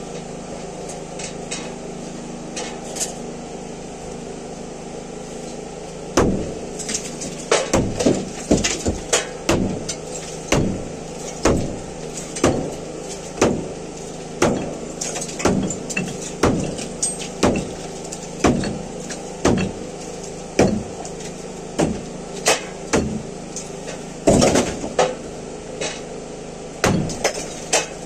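Hammer blows knocking apart a hollow clay-brick partition wall, roughly one strike a second starting about six seconds in, with a steady hum underneath.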